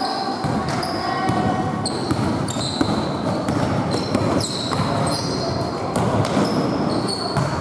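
Basketball game play in an echoing sports hall: a ball bouncing on the court and frequent short, high squeaks of players' shoes on the floor, with voices mixed in.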